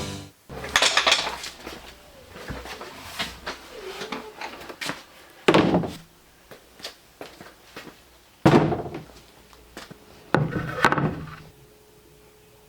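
Knocks and thuds of handling in a small room: four loud bumps a few seconds apart, the last a quick double, with lighter clicks and clatter between them.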